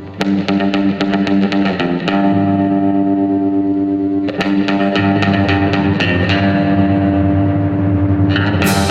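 Background music: an instrumental track led by a distorted electric guitar playing quick picked notes over bass.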